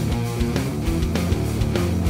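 Instrumental rock music with electric guitar and a steady drum beat.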